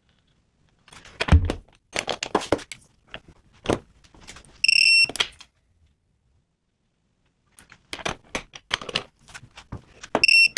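Clicks and knocks of tools and metal parts being handled, with two short high electronic beeps from a digital torque meter, one about midway and one at the end.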